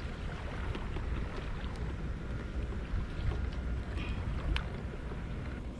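Wind rumbling on the microphone over open water, with a few faint ticks and a couple of short sharp clicks about four seconds in.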